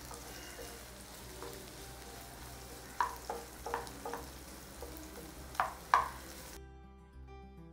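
Sliced onions sizzling in hot oil in a nonstick kadai as they sauté, stirred with a wooden spatula that scrapes the pan in short strokes, a few about halfway through and two more near the end. The sizzle then cuts off suddenly and soft background music takes over.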